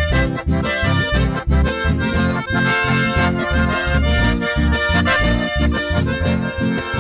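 Chamamé played by a small band: a piano accordion carries the melody in sustained chords over a steady, pulsing bass line.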